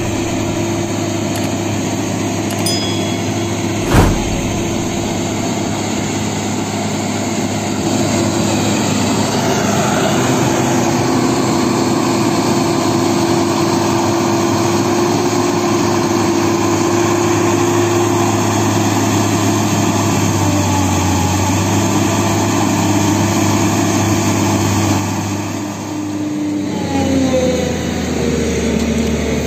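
Tata Hitachi EX210LC excavator's diesel engine running steadily under load as it works, with one sharp knock about four seconds in. Near the end the engine note dips and its pitch shifts downward.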